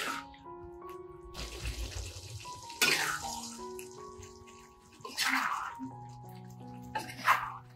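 Spatula stirring octopus in thick chilli sauce in a metal wok: about five wet scraping, sloshing strokes, one longer than the rest, over soft background music.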